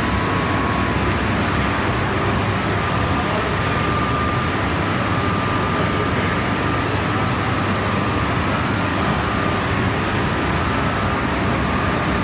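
850 kW Francis hydro turbine and generator running: a steady, loud, even rush of machinery and water, with a faint steady high whine over it.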